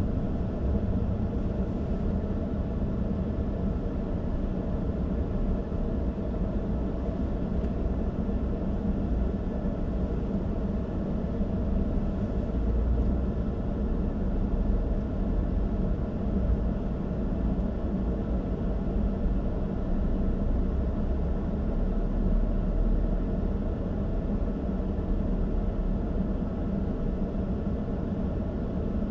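Steady rumble of a car driving: road and engine noise with a constant low hum and no sudden events.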